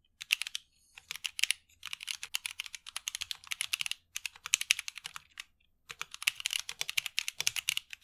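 Fast typing on a mechanical keyboard fitted with Kailh Box Cream self-lubricating linear switches, with no click mechanism: a quick patter of keystrokes in runs broken by short pauses. The sound is subtle but noticeably pleasant.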